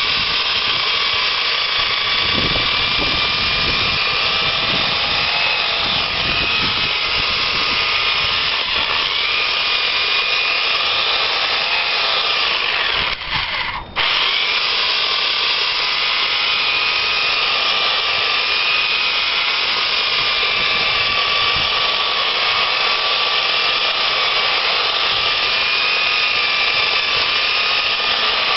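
Sun Joe SWJ701E 15-amp electric chainsaw cutting through a log, its motor running with a steady whine that wavers slightly as the chain bites. About halfway through it cuts out for about a second and then runs on.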